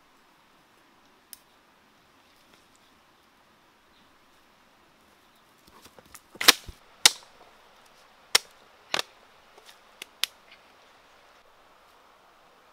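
A person pushing through forest undergrowth and over stones: a run of sharp cracks and knocks, about six of them from midway to near the end, the loudest two close together, over a faint quiet background.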